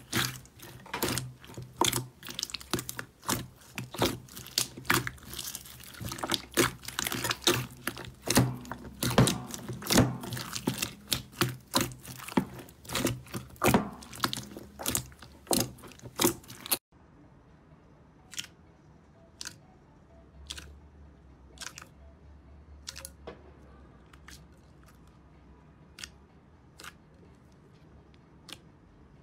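Hands squeezing and kneading a bowl of white slime with small beads mixed in, giving a dense run of crackles and pops. About 17 seconds in it changes abruptly to a glossy purple slime being poked and folded, with only sparse soft pops and clicks.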